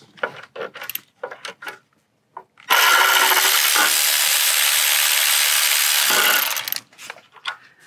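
Cordless electric ratchet with an E10 Torx socket spinning out a bracket bolt: a loud, steady whir of about four seconds that starts about three seconds in and stops near the end. A few light clicks come before it.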